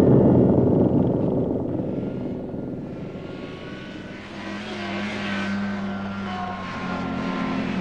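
An engine running steadily, a low drone that fades over the first four seconds and then grows louder again.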